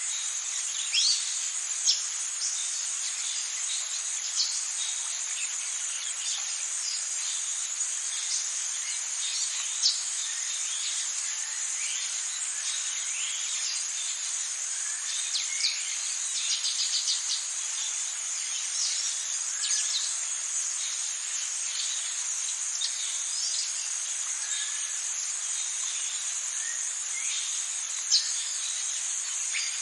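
Tropical rainforest ambience: a dense, steady high-pitched insect chorus with frequent short bird chirps and calls scattered over it.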